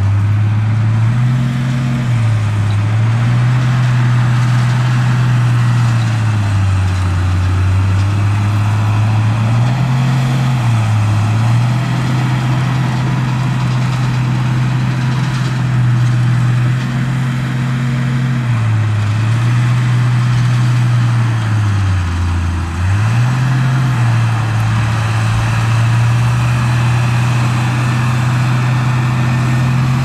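Heavy diesel engine of construction machinery running loudly and continuously. Its pitch sags and picks back up several times as the load changes, with the deepest dip about two-thirds of the way through.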